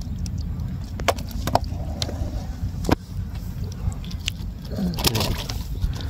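A monofilament gill net being handled by hand in a wooden boat: scattered sharp clicks and rustles as fish are freed from the mesh, over a steady low rumble. Near the end the rustling gets louder, with water, as the net is drawn up out of the river.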